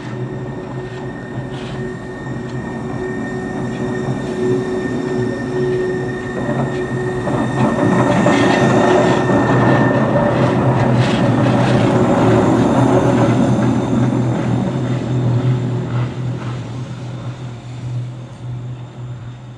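Bayerische Zugspitzbahn electric railcar passing close by at low speed, a steady electric hum with a held whine over it. It grows louder for the first several seconds, is loudest as the car goes past, then fades.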